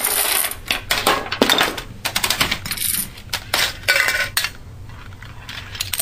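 A chain reaction of toppling dominoes and CD cases clattering onto wooden boards, in quick runs of sharp clicks and knocks that die down after about four and a half seconds.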